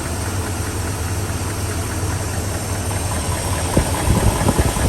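Newly installed engine idling with a rapid, steady tick from the valvetrain, which the owner takes for a bad lifter. The clicks grow sharper and louder near the end.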